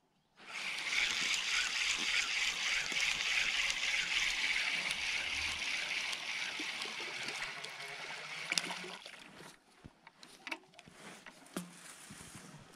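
Spinning reel cranked fast and steadily for about nine seconds while a rudd is reeled in to the boat. It then stops, and a few small splashes and clicks follow as the fish is lifted out of the water.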